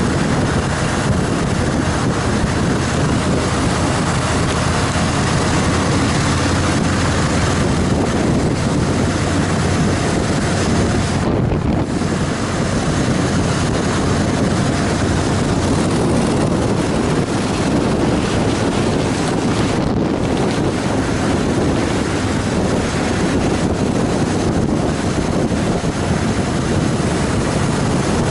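A 2014 Harley-Davidson Fat Boy Lo's V-twin running steadily at road speed under a heavy rush of wind on the microphone. The high part of the wind rush drops out briefly twice.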